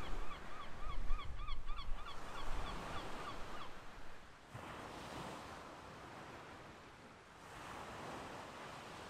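A gull calling in a quick series of repeated notes, about three a second, over the steady wash of surf on a sandy beach; the calls stop about three and a half seconds in, leaving only the surf.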